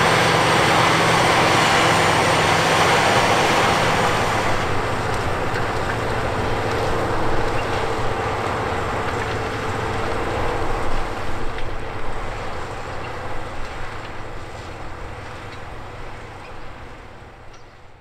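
Case IH Quadtrac 540 tracked tractor's diesel engine running steadily under load, with the noise of the towed subsoiler and disc harrow working the soil. It grows duller after about four seconds and fades away near the end.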